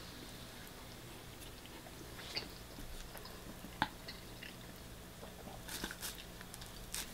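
Faint chewing of a mouthful of food, with a few light clicks and scrapes of a metal fork in a plastic food tray, the sharpest a little before halfway and several more near the end.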